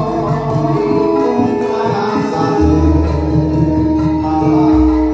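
Music with singing played loud over a PA sound system, with long held notes over deep bass notes that shift pitch twice.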